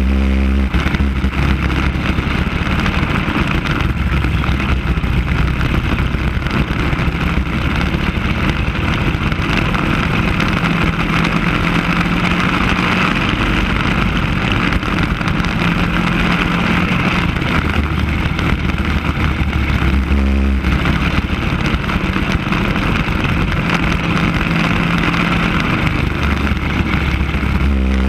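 Racing go-kart engines at speed, picked up by a camera mounted on a kart, heard as a loud, even rush of engine and air noise. The engine's pitched note stands out more clearly at the start, about twenty seconds in, and at the end, where the kart is cornering.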